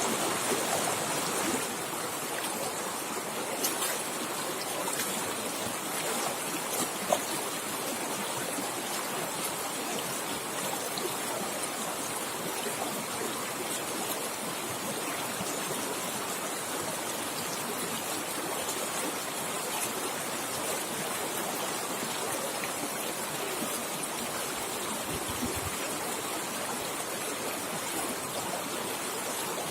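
River water flowing fast and heavy, a steady rushing noise with no letup. Two brief sharp ticks stand out, about four and seven seconds in.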